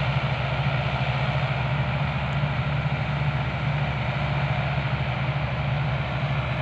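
Combine harvester's diesel engine running at a steady drone as it harvests rice, a low hum under a dense mechanical hiss.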